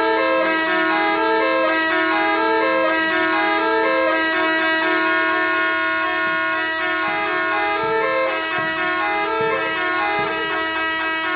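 Rajasthani horan, a wind instrument, playing a stepping melody over a steady drone.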